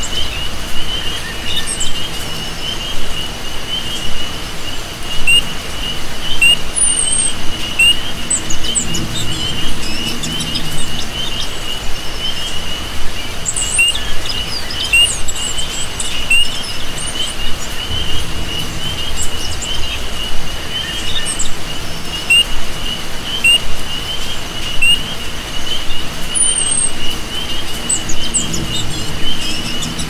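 Rainforest swamp ambience: a steady chorus of frogs and crickets chirring, with scattered bird chirps and rain hissing underneath.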